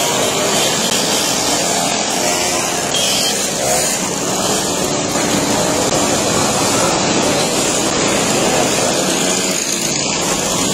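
A stream of small two-stroke mopeds riding past one after another, their engines buzzing together in a steady, loud mix.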